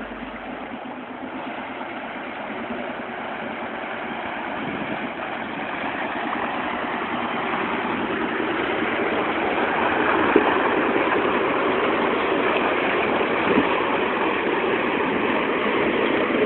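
Heavy off-road truck's engine running as the truck drives through deep water, with the churning and splashing of water around it, growing steadily louder as it approaches. There is a brief knock about ten seconds in.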